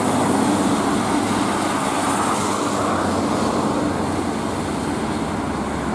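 Traffic on a wet road: a coach's engine drones steadily as it pulls away, over a steady hiss of tyres on wet tarmac. The engine drone fades after about three seconds.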